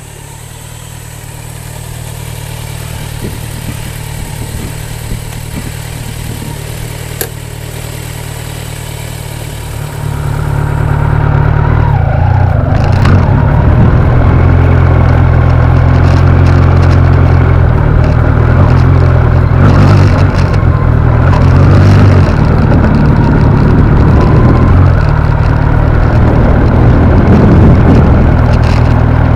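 Kawasaki Z900 motorcycle's inline-four engine running, fairly quiet and slowly getting louder at first. About ten seconds in it steps up sharply to a loud, steady drone as the bike rides on.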